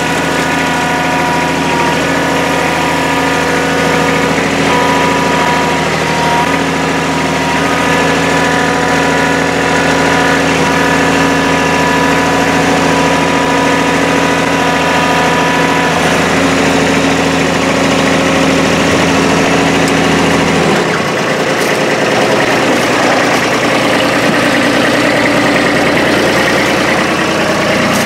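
Kubota compact tractor's diesel engine running steadily under the operator. About 21 seconds in, its note changes and turns rougher.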